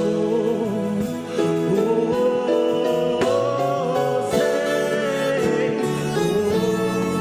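Gospel worship music: singing over instrumental accompaniment, with long held notes.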